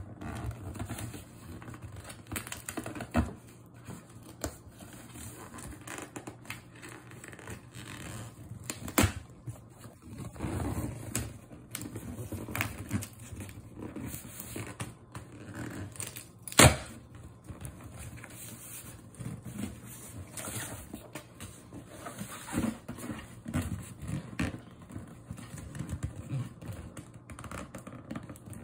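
Fingernails scratching and picking at packing tape on a cardboard box: a run of small irregular scrapes and ticks, with a few sharp clicks, the loudest about sixteen seconds in.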